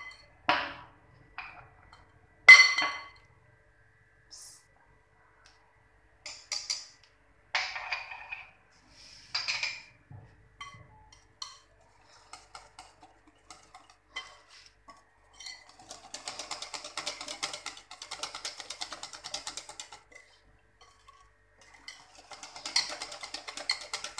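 A wire whisk clinking against a glass mixing bowl as flour is worked into cake batter. First come scattered separate clinks and taps. Then, about sixteen seconds in, fast steady whisking starts: a rapid ticking of wire on glass that pauses briefly and picks up again near the end.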